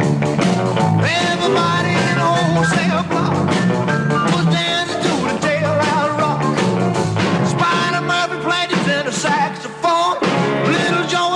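Rock and roll song with a male singer, walking bass and drums.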